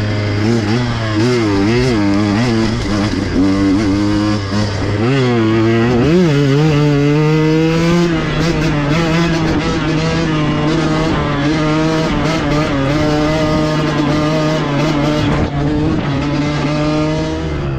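KTM 125XC's 125cc two-stroke single-cylinder engine under way on a dirt bike: revs rise and fall repeatedly for the first six seconds, then the engine jumps to a higher pitch and holds it steadily.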